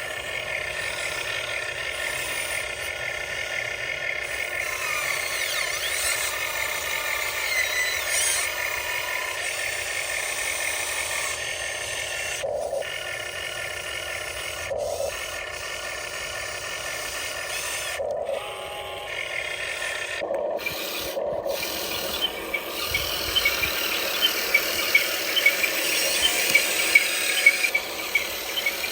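Huina 1599 RC excavator at work in hard dirt: its electric motors and gears whine steadily while the bucket rubs and scrapes through the soil. The sound breaks off briefly several times, and near the end a quick repeating ticking joins in.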